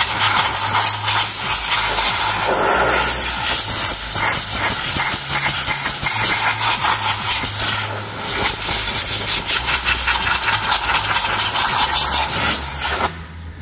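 Compressed-air blow gun hissing loudly as it blasts dirt off an aluminium gearbox casing, the rush flickering as the nozzle is moved over it, then cutting off sharply near the end.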